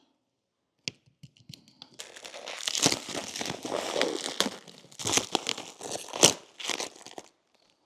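Old EVOX windshield paint protection film, on the glass for over two years, being peeled off. It makes a crackling, tearing noise with a few sharp snaps, starting about two seconds in.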